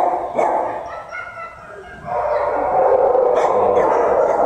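Shelter dogs barking in their kennels, a few barks at first, then swelling about two seconds in into a steady din of many barks overlapping.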